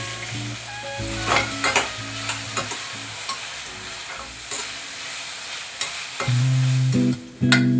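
Food sizzling as it fries in a pan, stirred with a utensil that knocks and scrapes against the pan several times.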